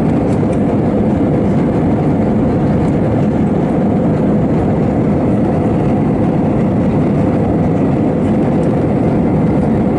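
Steady, loud jet airliner cabin noise in flight, heard from inside the cabin at a window seat: engine and airflow noise, even and unchanging, with a faint steady hum.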